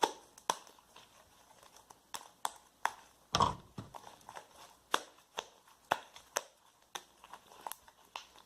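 Jiggly slime being kneaded and squeezed by hand, giving irregular wet clicks and pops about twice a second, with one fuller squelch about halfway through. The slime has just been given a little more borax activator and is still sticky.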